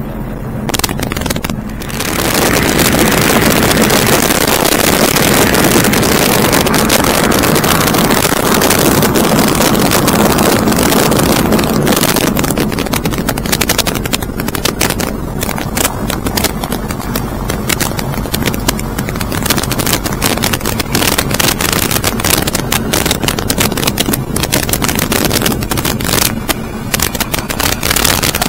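Loud steady rushing roar of flight, wind over the microphone with a low steady hum beneath it. From about twelve seconds in, rapid crackling buffets break through the roar.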